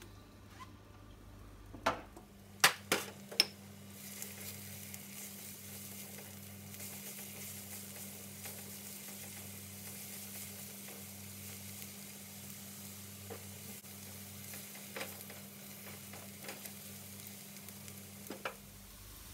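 Chopped garlic and shallots sizzling in a little cooking oil in a large nonstick wok as they are sautéed. A few sharp clicks come about two to three seconds in, and the sizzle settles into a steady hiss from about four seconds in.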